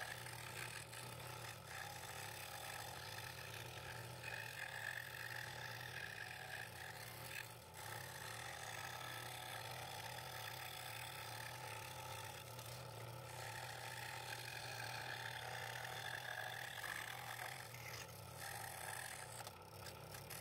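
Scroll saw running steadily, its fine blade cutting an internal cut through two stacked layers of wood.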